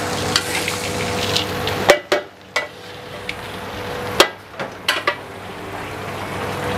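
Metal spatula stirring and clanking against a large steel wok of fried fish pieces, with sharp clanks scattered through. A steady frying hiss sounds under the stirring and falls away about two seconds in.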